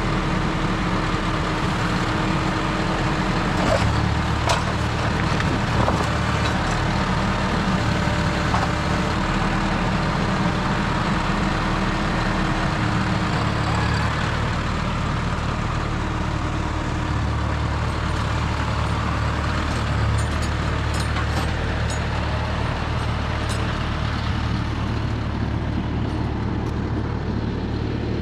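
John Deere 5075E tractor's diesel engine running steadily, its note shifting a few times as it works, with light clanks and rattles in the later part.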